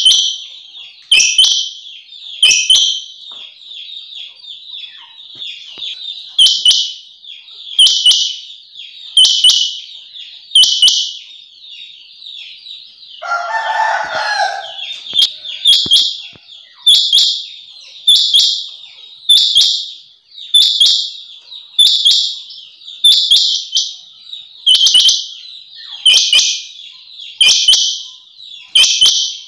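Female rain quail calling: a short, high-pitched call repeated steadily about every one and a half seconds, the call used as a lure to draw male rain quail. About halfway through, a lower, rougher sound breaks in for a second or two.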